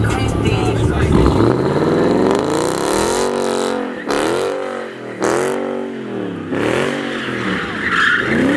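Dodge Challenger's engine revving hard, its pitch climbing and then rising and falling about once a second as the rear tyres spin in a burnout.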